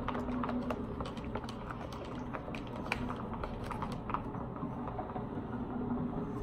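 Slime being mixed in a container: irregular sticky clicks and small pops, thinning out about two-thirds of the way through, over a steady low hum.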